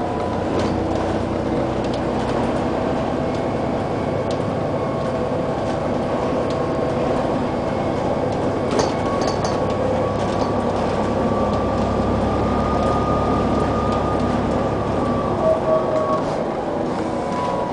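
Inside a moving bus: steady engine and drivetrain drone with road noise, and a whine that slowly rises and falls as the bus changes speed. There are a few light rattles of the bodywork about halfway through and again near the end.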